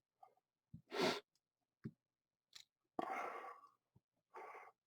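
Faint handling noises: a USB lead being unwound and its plastic wrapping crinkling, in a few short rustles and crackles, the loudest about a second in.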